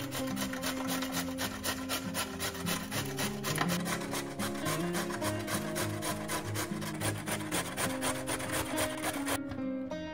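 A vegetable being grated by hand on a grater in fast, even rasping strokes, about five a second, that stop suddenly near the end.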